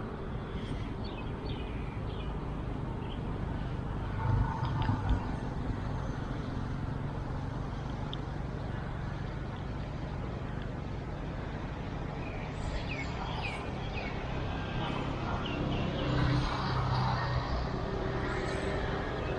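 Steady road traffic rumble, with passing vehicles swelling louder about four seconds in and again around sixteen seconds in. A few short, faint high chirps come through in the second half.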